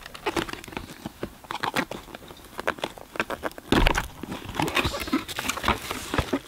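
A cardboard product box being handled and opened by hand: crackling, scraping and tapping of the card, with a louder knock about four seconds in.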